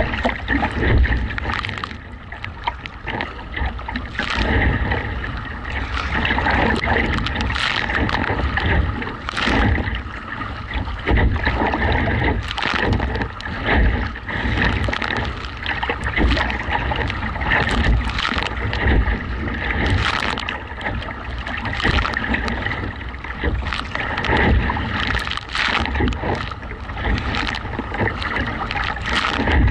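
Gusty wind buffeting the microphone with a low rumble, while a kayak's paddle strokes and choppy waves splash and slap against the hull every second or two.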